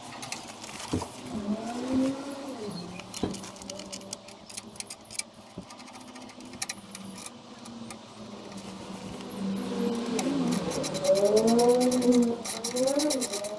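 A man humming to himself without words while fixing a number plate to the back of a truck, with small clicks from the screws and tool. In the last few seconds a fast, even ticking joins the humming.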